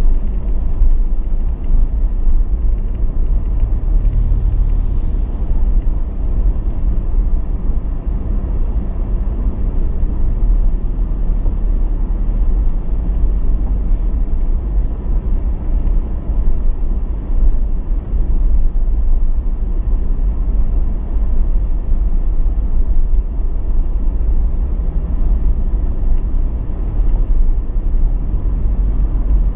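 Steady low rumble of a Toyota Land Cruiser Prado driving slowly: engine and road noise.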